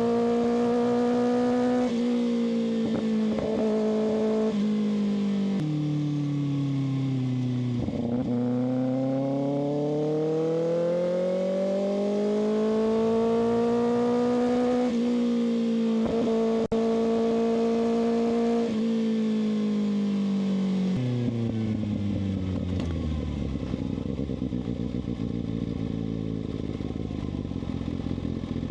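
Kawasaki ZX-6R inline-four engine under way. Its note holds, dips, then climbs steadily for several seconds. It then steps down in pitch several times and settles to a low idle about three-quarters of the way through.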